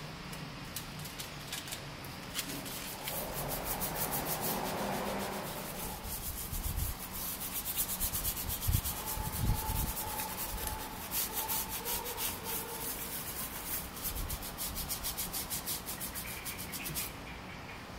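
Microfiber towel and gloved hand rubbing and scrubbing a car's steering wheel in quick repeated strokes.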